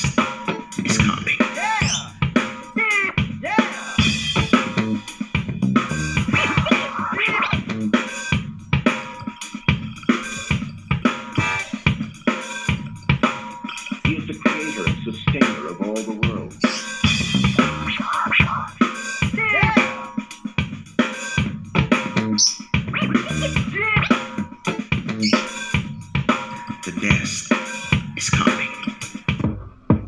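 Music with a drum-kit beat played through a portable Awei Bluetooth speaker and picked up by a microphone in the room, as a sound test of the speaker.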